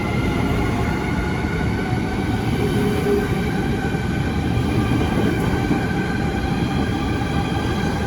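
Electric train running, with a steady rumble and a whine of several held tones above it.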